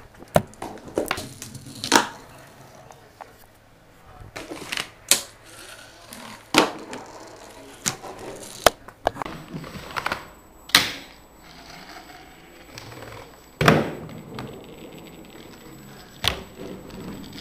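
Fingerboard rolling on a wooden mini ramp: about a dozen irregular sharp clacks and knocks as the board's wheels and deck hit the ramp, some much louder than others.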